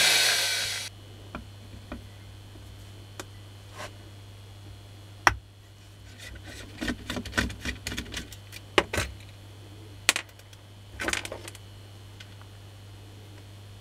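Makita 9237CB electric polisher running briefly, then cutting off abruptly about a second in. Scattered clicks, taps and rustling follow as hands handle the tool, over a steady low hum.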